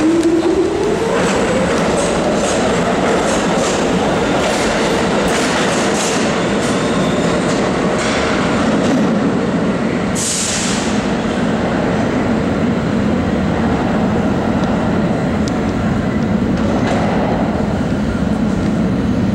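Pullman Standard R46 subway train pulling out of the station. Its motors whine upward in pitch as it gathers speed, the wheels clack over rail joints as the cars pass, and then it rumbles steadily away into the tunnel. A short hiss sounds about halfway through.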